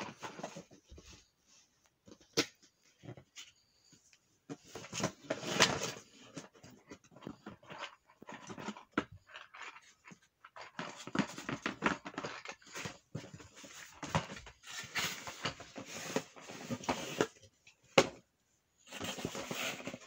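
Cardboard toy box and plastic fidget toys being handled on a bed: irregular rustling, scraping and light clicks in short clusters, with a sharp tap a little over two seconds in and another near the end.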